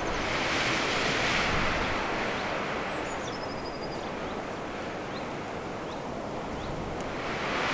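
A rushing, wind-like noise that swells, ebbs and swells again near the end, with a few faint high chirps and a short trill over it.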